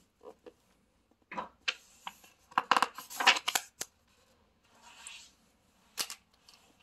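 A stiff book page being turned by hand, the paper rustling and crackling with several sharp clicks, then a softer brush of paper and one more click near the end.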